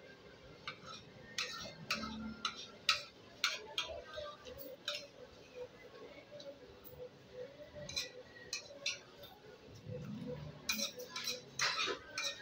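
Irregular light clicks and clinks of hard objects, several in quick succession in the first few seconds, sparser in the middle and bunched again near the end, over a faint steady hum.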